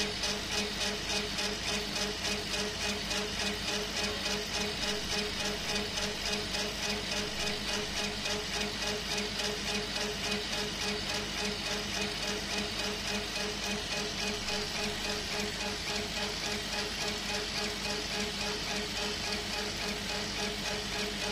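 CO2 laser engraving machine running as its head works across the sheet: a steady machine hum with a regular pulsing about three times a second.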